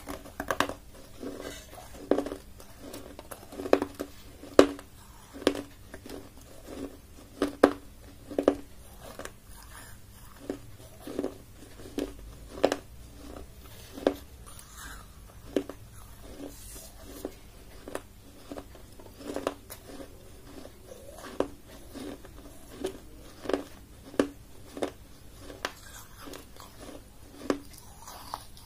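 Close-miked biting and chewing of baked clay: a long irregular run of sharp crunches, roughly one a second, as pieces of a fired clay cup crack between the teeth, louder in the first half.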